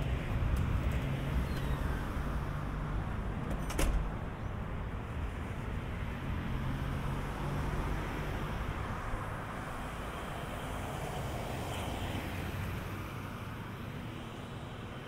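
Motor vehicle traffic running steadily with a low engine rumble that eases off slightly toward the end. There is a single sharp click about four seconds in.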